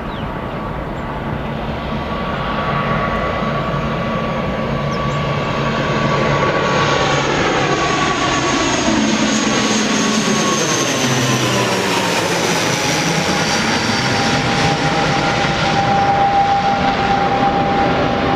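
Jet airliner coming in to land, passing close overhead: a rushing engine noise that grows louder, with a steady whine that drops in pitch about two-thirds of the way through as the aircraft goes by.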